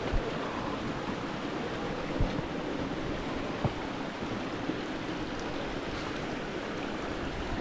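Steady rush of water from a waterfall and creek cascading over rock, with a few brief knocks.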